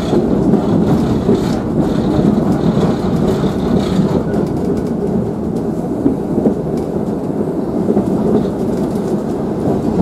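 Blackpool replica Vanguard tramcar 619 running along the track, heard from on board the open-sided car: a steady low rumble of steel wheels on rails and the running gear, with a few faint clicks.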